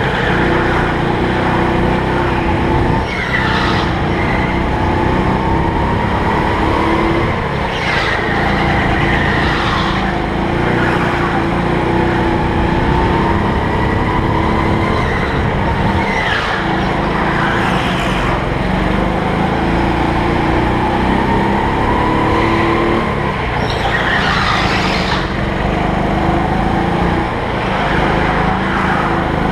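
Go-kart engine heard onboard, its revs climbing for several seconds on the straights and dropping for the corners, over and over. Tyres squeal briefly through several of the turns.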